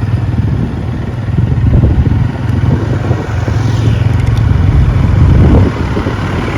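Steady low rumble of a moving road vehicle: engine and road noise while travelling.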